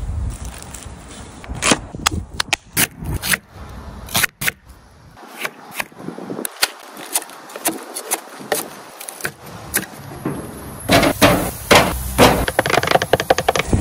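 Burger-making sounds in quick cuts: sharp taps and knocks of a chef's knife slicing a tomato against a wooden cutting board. Near the end comes a denser, louder run of crackling clicks as raw beef patties go onto the grill grate.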